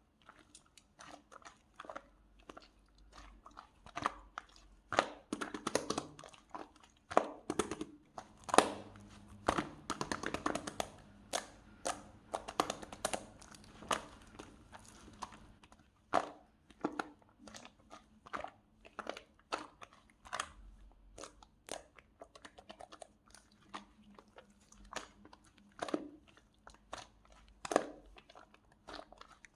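Close-up irregular crunching and crackling: many small sharp crunches at an uneven pace, busiest in the middle.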